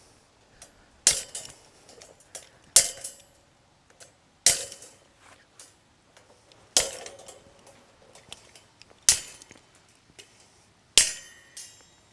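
Bolt cutters snipping through the wires of a stiff welded-wire fence panel one at a time: six sharp snaps about two seconds apart, each followed by a brief metallic ring.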